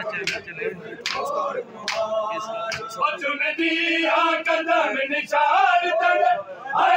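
Men's voices chanting a nauha, a Muharram lament, led by one singer with the crowd. Sharp strikes of hand chest-beating (matam) come through in the first two seconds, then long held sung lines take over from about three seconds in.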